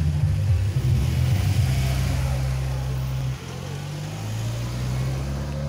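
Low hum of a motor vehicle engine running; it drops in level a little past halfway, then slowly rises in pitch.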